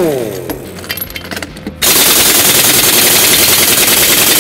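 Pneumatic impact wrench hammering on a semi truck's wheel nuts to break them loose. It winds down at the start, pauses for about a second and a half with a few light clicks, then hammers steadily again from about two seconds in.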